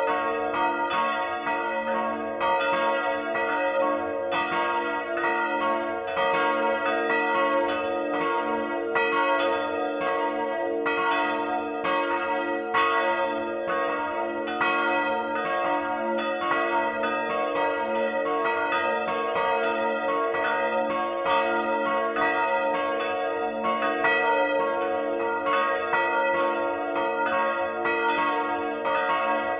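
The church's swinging bells ring together close up in the belfry: a peal from two 1952 Rincker bells and a 1759 Johann Peter Bach bell, with strike notes including a' and c-sharp''. Clapper strikes fall irregularly and overlap, over a steady hum of the bells' lingering tones.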